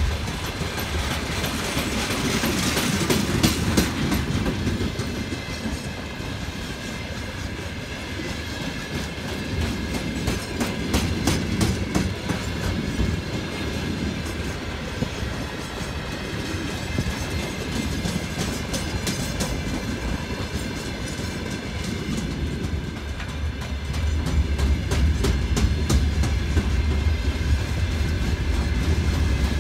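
Freight train wagons rolling past: a steady rumble of steel wheels on rail with repeated clicks as the wheelsets cross rail joints. The low rumble grows louder about three-quarters of the way through.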